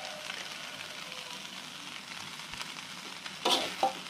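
Rice vermicelli sizzling as it is stir-fried in a wok, with a metal spatula stirring and scraping through it; two louder sharp scrapes near the end.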